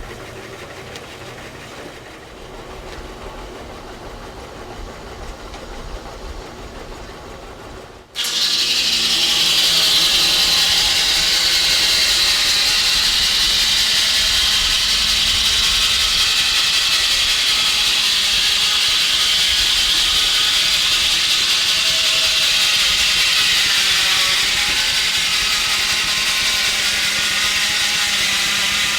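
Steady, quieter machinery noise, then about eight seconds in a sudden change to loud, steady hissing steam from a steam engine.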